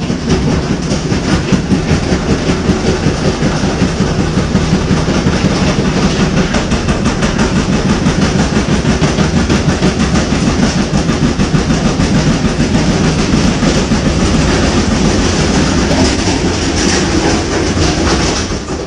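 Samsung washing machine running loudly, its drum spinning with a fast, steady rattling and knocking that drops off near the end. This is the shaking the owner calls the sign of a defective machine, one that walks across the floor.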